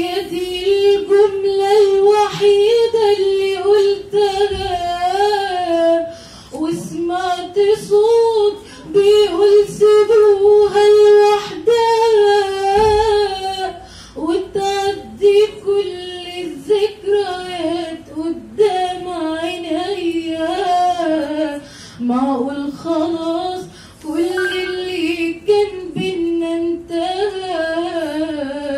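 A teenage girl singing solo and unaccompanied into a handheld microphone, in long phrases of held, wavering notes with short breaks for breath between them.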